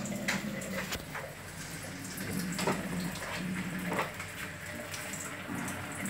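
A few soft clicks and knocks from an electric rice cooker and its inner pot being handled, over a steady hiss.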